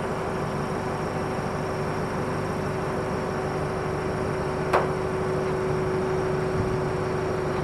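Forklift engine running steadily, with one sharp click about five seconds in.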